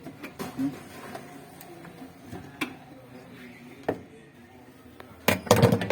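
Scattered clicks and knocks of tools and machine parts being handled, with a louder rattling clatter near the end.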